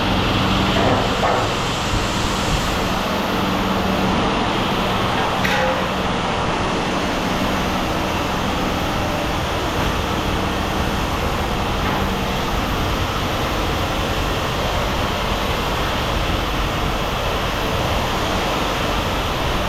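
A vehicle or machine engine running steadily, a constant low hum under a broad rumbling noise.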